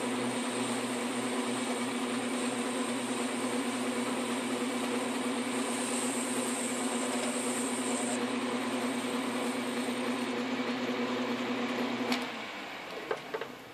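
South Bend 9-inch metal lathe running under power, its tool cutting an aluminium pulley: a steady motor and drive hum with a hiss of cutting over it. About twelve seconds in there is a click and the hum dies away, followed by a few light knocks.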